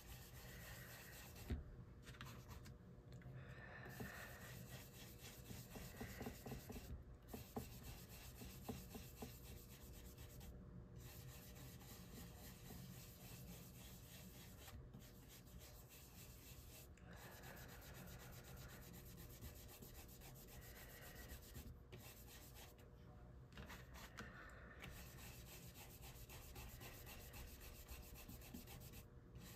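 Faint, continuous rubbing of an ink-blending tool worked over paper, the strokes swelling and fading unevenly.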